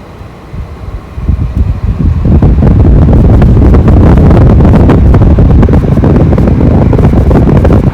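Air conditioner's fan airflow rushing and buffeting the microphone, a loud rumbling wind noise. It builds over the first two seconds, holds steady and drops away sharply at the end.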